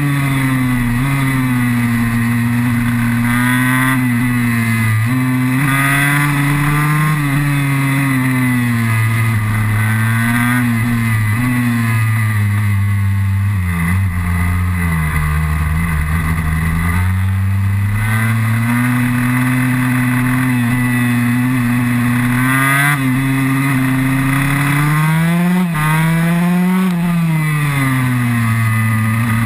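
KTM 144 SX two-stroke single-cylinder supermoto engine heard from on board, revving hard up and down through the gears. The pitch climbs and drops again and again with gear changes and corners, and sits lower for a few seconds around the middle.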